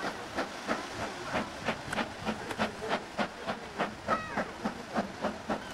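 BR Standard Class 4 2-6-4 tank locomotive 80079 working its train with sharp, even chimney exhaust beats at about three a second, over a steady hiss of steam.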